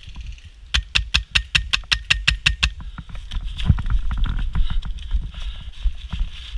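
Airsoft gun firing a quick string of about a dozen shots, roughly seven a second, followed by irregular thuds and rustling of running footsteps.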